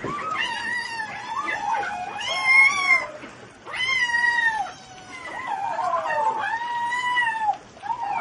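Kittens meowing loudly and insistently, hungry: long, high-pitched meows one after another, often overlapping.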